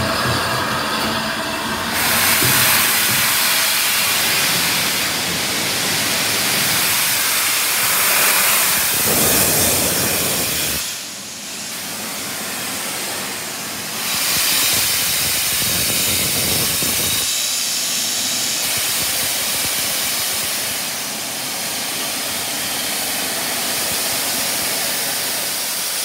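Steam locomotive 60103 Flying Scotsman, a three-cylinder LNER A3 Pacific, hissing loudly as steam blasts from its open cylinder drain cocks while it moves slowly. The hiss eases for a few seconds about eleven seconds in, then comes back strongly.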